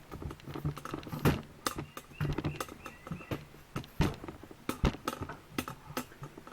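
Irregular light clicks and knocks of objects being handled and set down, with somewhat heavier knocks about a second in and again around four and five seconds in.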